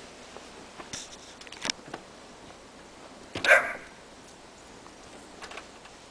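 A miniature dachshund barks once, short and sharp, about three and a half seconds in, with a few faint clicks shortly before.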